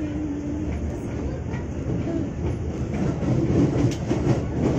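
KRL Commuter Line electric train heard from inside the carriage as it runs along the track: a steady low rumble with sharp wheel clicks over the rail joints, louder near the end.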